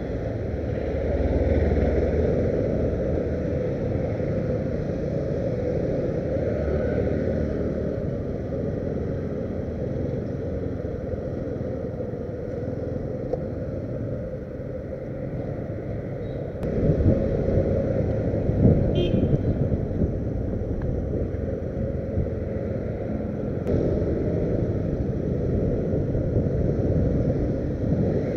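Motorcycle riding along a city street: its engine running steadily under road and wind rumble on the microphone. It gets louder a little past halfway.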